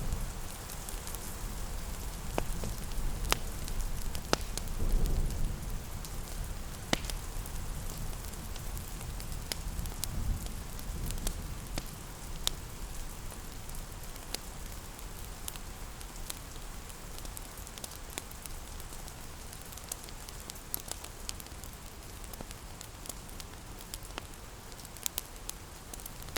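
Steady rain pattering, mixed with a crackling fireplace: irregular sharp pops and snaps over a low, even rumble.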